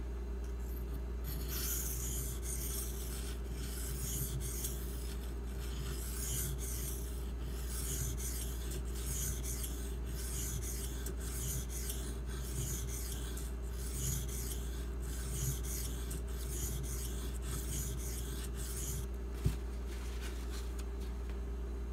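1095 carbon-steel pocketknife blade ground on a Shapton Glass whetstone in a steady run of scraping strokes, setting the bevel on the second side of the edge. The strokes stop about 19 seconds in, followed by one sharp tap.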